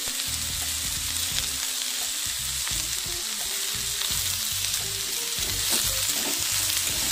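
Shredded cabbage and chopped vegetables sizzling in hot oil in an iron kadhai, with a steady frying hiss while a spatula turns them.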